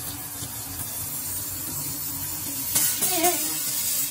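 Kitchen faucet running, with a steady hiss of spraying water and spitting air as trapped air is purged from the line. It gets louder with a few sharp spurts about three seconds in.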